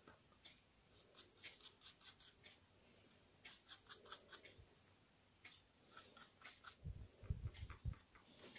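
Faint quick ticks in short runs as a paintbrush loaded with purple paint is flicked to spatter small drops onto paper. Near the end come soft low thumps of a crumpled tissue dabbing the paper.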